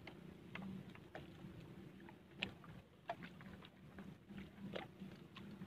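Faint scattered clicks and knocks from handling gear in a small boat, over a low steady hum.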